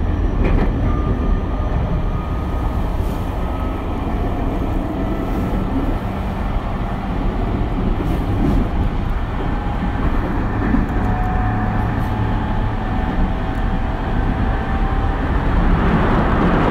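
Running sound of a JR East E231 series electric train heard inside a motor car: a steady rumble of the wheels on the track, with faint whine from the traction motors and VVVF inverter that shifts slowly in pitch.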